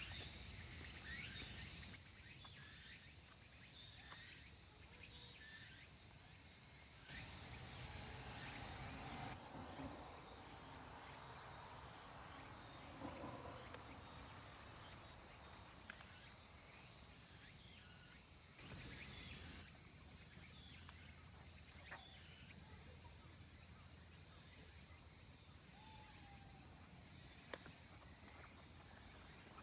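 Faint, steady high-pitched insect trilling, swelling louder twice: once for about two seconds a quarter of the way in, and once briefly about two thirds of the way in.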